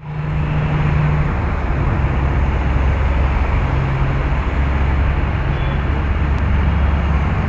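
Diesel generator engine running steadily: a loud, constant low drone with a faint hum that swells and fades a little.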